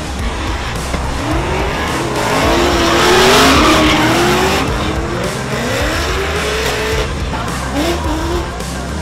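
Drift cars in a tandem run sliding through a corner, engines revving up and down with tyre squeal. It is loudest about three to four seconds in.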